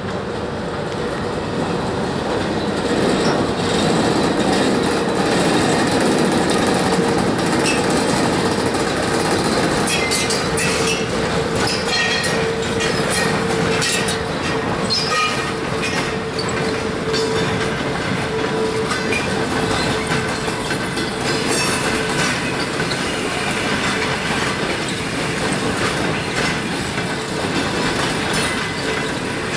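EP1M electric locomotive and its mail and baggage cars rolling slowly past as the train pulls out of the station, wheels clacking over the rail joints. A steady hum runs through the first two-thirds and fades out after about twenty seconds.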